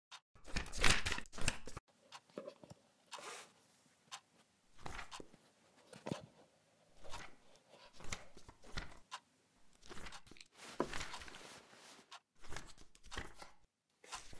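Sheets of paper rustling and crinkling as they are handed back over the desks, in irregular bursts, loudest in the first couple of seconds and again near the end, with small scratches and knocks between.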